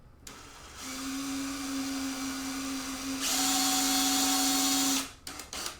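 Power drill running steadily for about four seconds. It gets louder and brighter about three seconds in, then stops abruptly.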